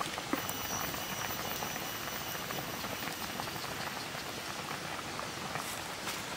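Pan of fish soup boiling hard over a wood fire: a steady bubbling hiss.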